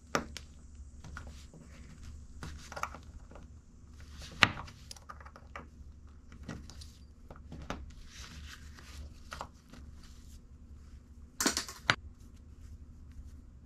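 Small metallic clicks and scrapes of a steel ball bearing being worked at by hand to pry off its side shield. The loudest is a sharp click about four seconds in, and a brief scratchy rustle comes near the end, over a low steady hum.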